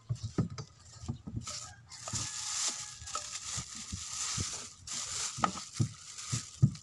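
Paint containers and supplies being handled: irregular knocks and clicks, with a rustling hiss from about two seconds in that lasts some three seconds.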